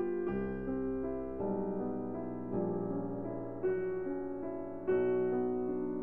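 Background music played on piano, with sustained notes and chords changing every second or so.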